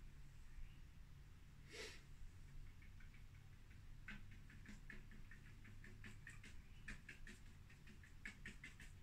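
Faint short squeaks and taps of a paintbrush working against a stretched canvas, coming in quick clusters from about four seconds in. A short hiss about two seconds in.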